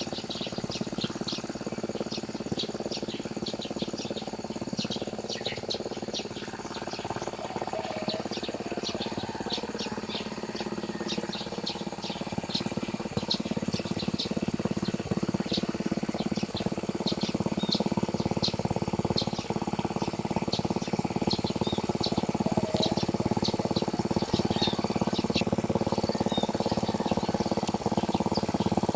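A tractor engine running steadily while plowing a rice paddy. It grows louder from about halfway through, and many birds chirp over it.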